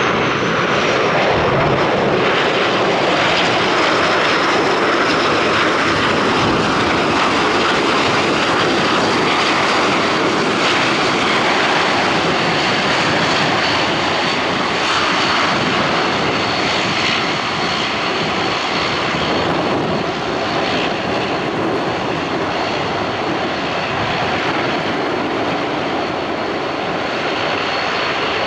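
Dash 8-400 (Q400) turboprop's Pratt & Whitney PW150A engines and propellers running loud and steady as the airliner rolls out after landing and slows to taxi. A high whine drops in pitch over the first second or two, then holds steady.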